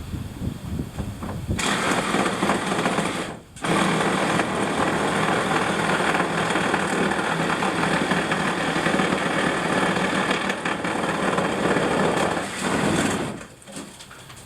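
Electric power saw cutting through old barn floorboards, running steadily with one short stop about three and a half seconds in, and cutting off about a second before the end.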